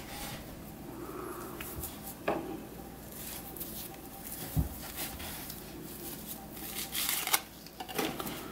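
Rustling and handling of a burlap drawstring bag as a sheathed knife is pulled out of it, with scattered light knocks, a soft thump about halfway through and a couple of clicks near the end.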